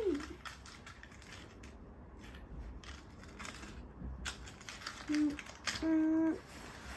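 Scattered light clicks and scrapes of handling, with two short hummed notes from a person about five and six seconds in.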